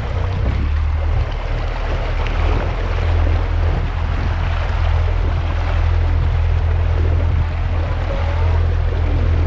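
A boat's outboard motor running steadily under way, a constant low drone under the rush of water and wind.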